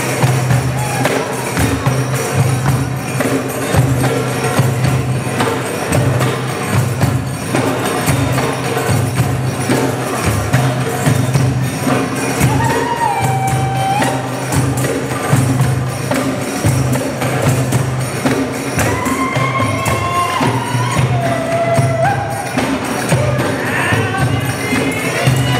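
Live belly-dance music: hand drums and a jingling tambourine keep up a dense rhythm over a steady low drone. A sliding melody line comes in a few times, around the middle and again near the end.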